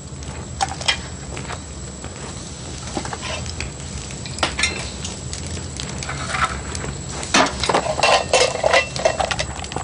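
Scattered clinks and knocks of kitchenware being handled, pots, jars and crockery moved on wooden shelves, busiest in the last few seconds, over a low steady hum.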